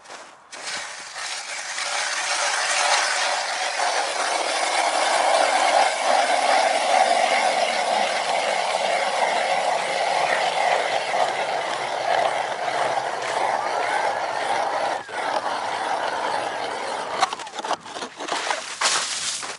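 Hand-cranked ice auger drilling a hole in pond ice: a steady grinding scrape of the blades cutting through the ice. It stops near the end, followed by a few short knocks.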